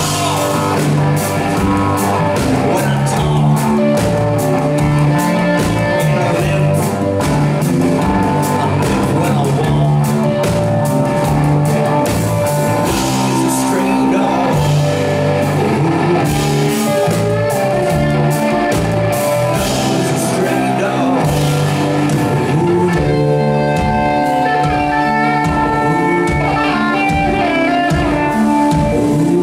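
Live rock band playing: electric and acoustic guitars, bass, drum kit and keyboards, with steady drum strokes under sustained guitar and keyboard notes.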